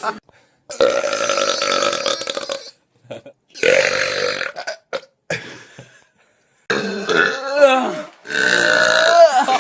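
A string of loud human burps, about five, each one to two seconds long and cut off abruptly, the later ones with a wavering pitch.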